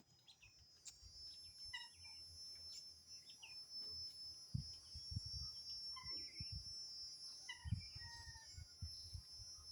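Cicadas droning steadily at a high pitch, with short calls from guinea fowl a few times, notably about two seconds in and near eight seconds. Low thuds come and go through the second half.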